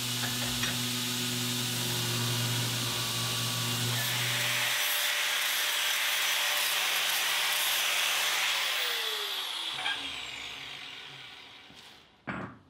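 Belt grinder running with a steel power hammer die held against the belt, then an angle grinder working the hardened die's surface to clean it up. The angle grinder spins down with a falling whine, and a die is set down on the anvil with a clank near the end.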